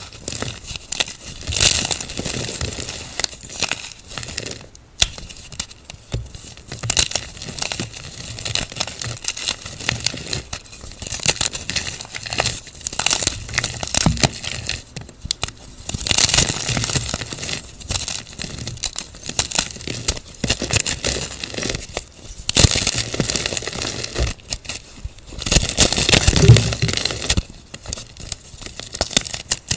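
Blocks of plain white gym chalk crushed and crumbled between bare hands: dense, crunchy crackling of the chalk breaking apart, coming in uneven surges, loudest about three-quarters of the way through.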